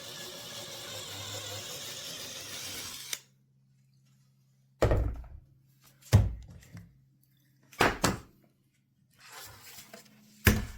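Electric drill running for about three seconds as it bores a pilot hole into the wood, then stopping suddenly. Several loud thunks follow, a second or two apart.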